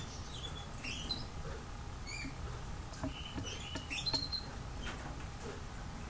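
Small songbirds chirping in short high calls and chips, scattered through and busiest from about three to four and a half seconds in, with a few sharp clicks and a low steady rumble underneath.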